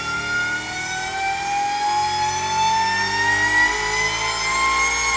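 Supercharged 6.6 L GM L8T V8 with a Harrop TVS2650 top-mount supercharger running under load on an engine dyno during a full-power pull. The engine and supercharger whine rise steadily in pitch as the revs climb past 6,000 RPM.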